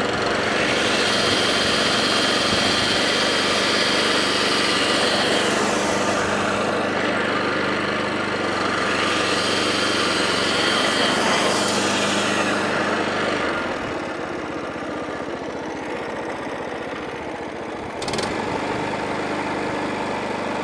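20-inch petrol cylinder lawnmower engine running at full revs after a cold start, with a high whine from the engaged cutting cylinder and drive coming in twice. About 14 s in the engine drops to a quieter, lower note, and a sharp click about 18 s in is followed by a slight rise in level.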